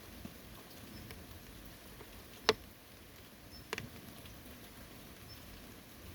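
Steady rain falling on a forest. Two louder single drops land close by: one about two and a half seconds in, and another about a second later.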